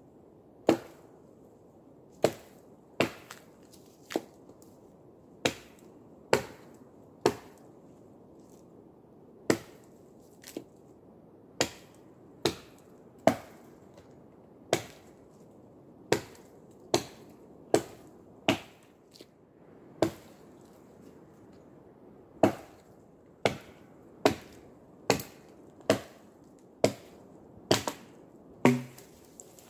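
Chopping into a small tree with an axe: a long series of sharp, separate blows into wood, roughly one a second, with a couple of short pauses.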